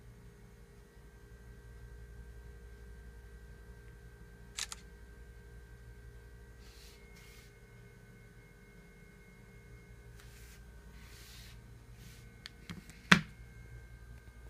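Samsung smartphone's camera shutter click, a short double click about a third of the way in, followed by soft handling rustles, then a louder sharp knock near the end as the phone is set down on the table. A faint steady hum runs underneath.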